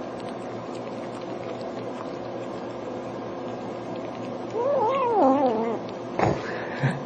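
A kitten eating gives one drawn-out, wavering mewing call, rising and falling in pitch, about two-thirds of the way through, over a steady low hum. There is a short knock near the end.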